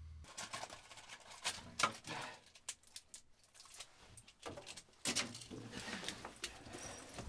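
Quiet, scattered short clicks and rustles of a person moving and handling things at close range in a small room.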